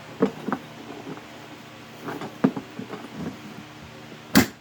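Scattered light clicks and knocks of tools and metal parts being handled, with one louder clunk near the end.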